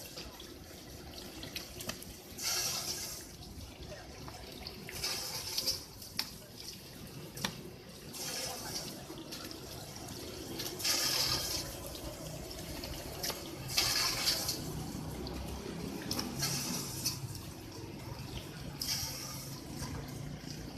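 Automatic fish-filleting machine running with its water spray splashing, the hiss of water surging every two to three seconds over a low hum.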